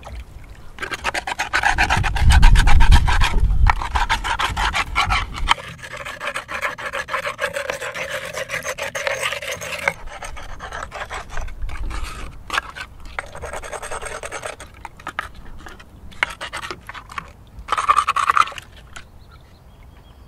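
Rough, repeated scraping and scrubbing strokes in a shallow clay dish of water as a sea lion bone is scrubbed clean. One long spell of strokes is followed by three shorter ones with pauses between. A low rumble runs under the strokes about two to five seconds in.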